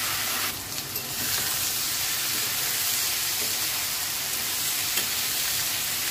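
Sliced bitter gourd sizzling steadily in hot mustard oil in a pot, stirred and turned with a flat spatula; the sizzle drops briefly about half a second in. The gourd is frying to soften before the onions go in.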